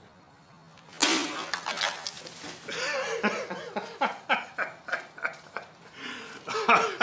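A sudden sharp hit about a second in, followed by a man laughing, with scattered short knocks and clinks.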